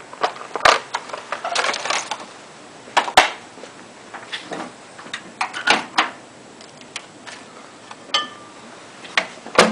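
Scattered sharp clicks and knocks of objects being handled, about a dozen in all, with one short beep about eight seconds in.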